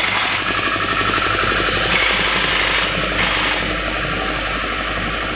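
Belt-driven piston air compressor running with a fast, even chugging, broken by spells of loud hissing air.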